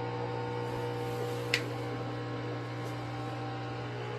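Washing machine drain pump humming loudly and steadily during the drain cycle, a low electrical drone with higher overtones instead of the normal pumping sound: the abnormal noise that the electrician puts down to a jammed drain pump. A short sharp click about a second and a half in.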